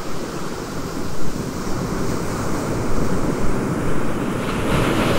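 AI-generated sound of sea waves surging and breaking against rocks: a continuous rush of surf, with a swell about a second in and another building near the end. The sound was synthesised by the MMAudio video-to-audio model from a clip of waves on rocks.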